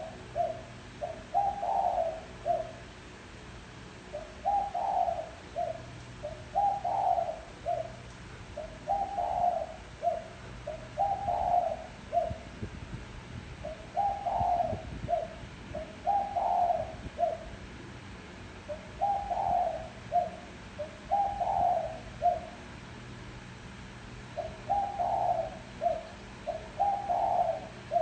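Spotted dove giving its calling coo: short phrases of several low coos repeated every two to three seconds, mostly in pairs with brief pauses between.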